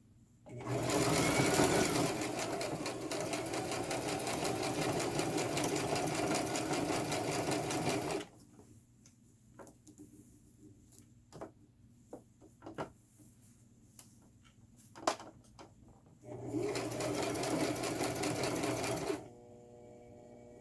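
Electric sewing machine stitching two hair wefts together. It runs at speed for about seven seconds, stops, and there are a few small clicks while the hair is repositioned. A second, shorter burst of stitching comes near the end.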